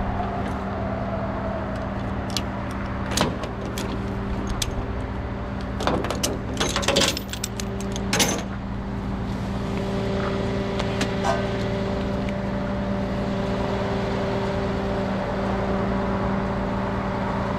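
Rollback tow truck's engine running steadily, its hum stepping up slightly about nine and a half seconds in. Tie-down chains and hooks clank and rattle against the steel deck a few times, loudest between about six and eight and a half seconds in.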